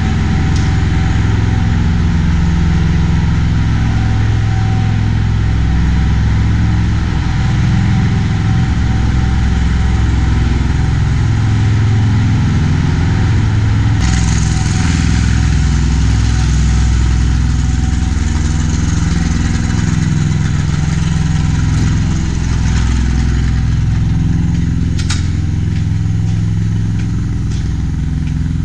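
Loud, steady engine drone with a low hum, with more hiss coming in about halfway through and a single sharp click near the end.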